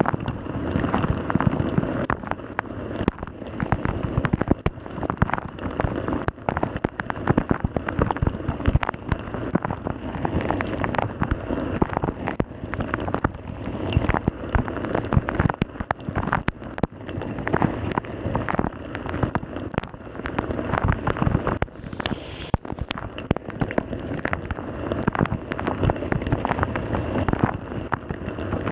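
Water spraying and splashing inside a running Samsung dishwasher, drumming on the camera housing as a dense, irregular patter of droplets over a steady rushing wash. A short high-pitched whine sounds about 22 seconds in.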